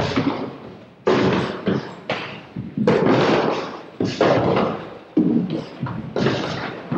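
Kicks and punches landing on hanging heavy punching bags: a string of sharp smacks, about one or two a second, each trailing off in the hall's echo.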